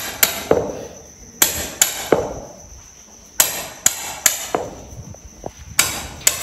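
Hammer knocking a blade through the edge of a horse's hoof wall to trim the overgrown hoof. There are about ten sharp knocks, coming in twos and threes with short pauses between.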